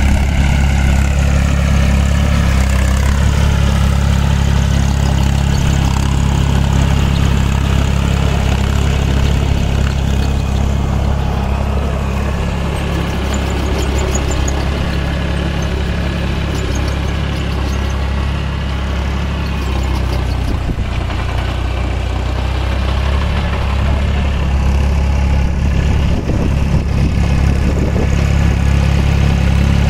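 Force Orchard mini tractor's diesel engine running steadily as it drives through a flooded, muddy field.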